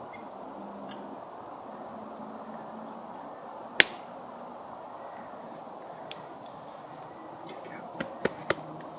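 Several sharp clicks or snaps against a steady background hiss: one loud click about four seconds in, a fainter one about two seconds later, and three quick ones near the end.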